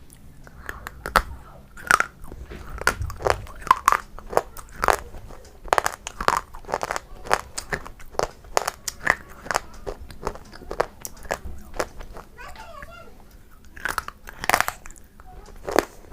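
Close-miked crunchy bites and chewing of a crisp food, with a quick run of sharp crunches one or two a second.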